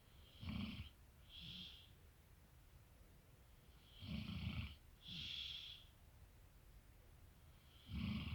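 A sleeping man snoring: three loud snores about four seconds apart, the first two each followed by a softer, hissing breath out.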